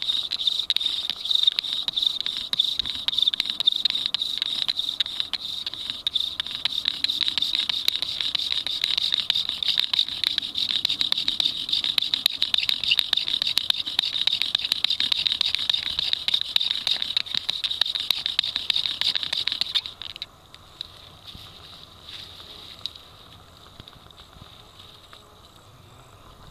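Bow drill at work: a cypress spindle driven by the bow grinds in a cypress hearth board, making a high steady whine crossed by rapid scratchy strokes. It stops abruptly about twenty seconds in, once the friction has ground out the dark dust that forms the coal.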